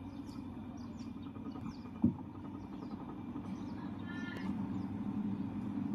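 Washing machine drum turning in the spin cycle, a steady low hum that gets gradually louder as it picks up speed, with one short knock about two seconds in. The machine is running normally after its faulty water-level sensor was replaced.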